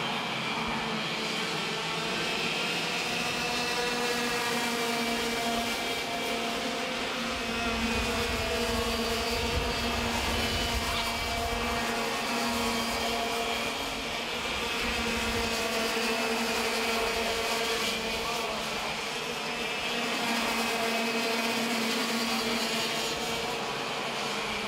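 Racing go-kart engine running at high revs, a steady high-pitched buzz that rises and dips only slightly.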